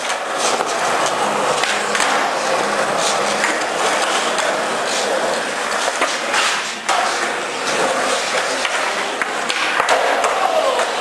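Skateboard wheels rolling with a steady rumble, broken by several sharp clacks of the board hitting the floor.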